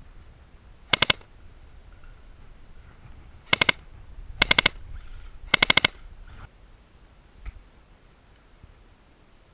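Airsoft gun firing four short automatic bursts of a few rapid, sharp shots each, spread over about five seconds.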